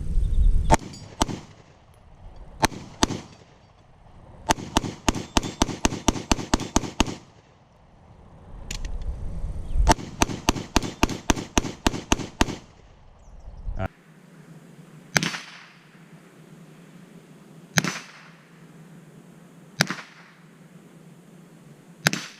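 Gunfire from a semi-automatic firearm: a few single shots, then two rapid strings of about a dozen shots each at roughly five a second. After a change in the sound about fourteen seconds in come four widely spaced single shots.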